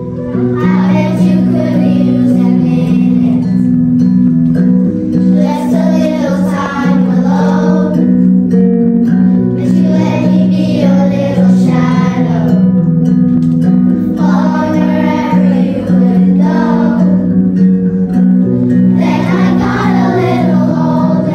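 Children singing a song together in phrases of a few seconds with short breaks, over a steady instrumental accompaniment of held chords.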